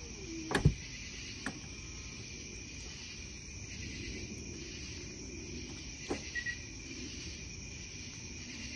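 Polestar tailgate shutting with a sharp latching thunk about half a second in, followed by a steady high-pitched chorus of night insects with a few faint clicks.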